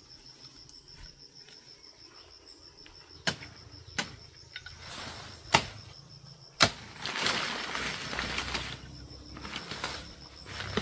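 A steady, high insect trill runs throughout. About halfway through come four sharp knocks at uneven intervals, followed by a couple of seconds of rustling.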